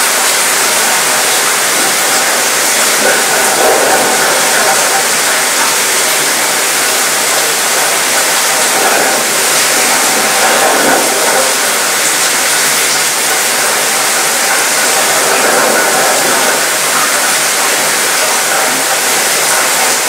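Steady rain shower falling on a cruise ship's mostly metal balcony and railing: a constant, even hiss with a light rattling of drops on the metal.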